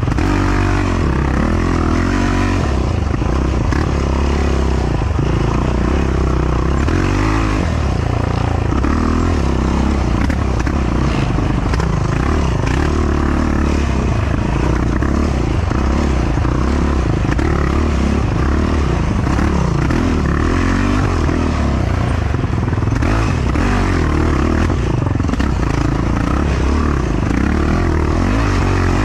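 Yamaha YFZ450R quad's single-cylinder four-stroke engine under racing throttle, its pitch rising and falling again and again as the rider opens and closes the throttle.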